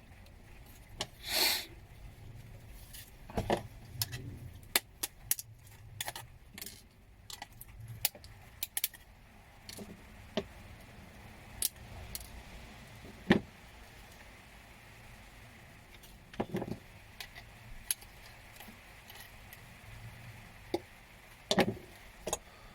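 Small metal parts and hand tools clicking and clinking as electronic components are picked off a circuit board, in irregular single clicks with a longer, louder rattle about one and a half seconds in and a quick cluster of clicks a few seconds later.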